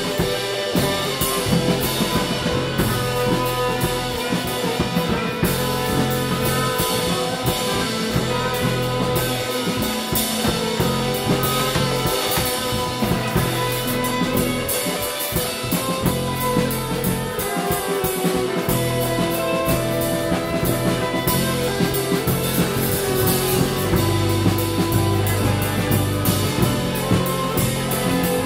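Live band jamming: a drum kit with steady cymbal and drum hits, electric bass, electric guitar and saxophone playing together.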